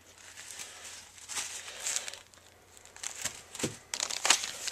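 Packaging rustling and crinkling in short irregular bursts as a cardboard collector's box and its contents are handled, busiest near the end.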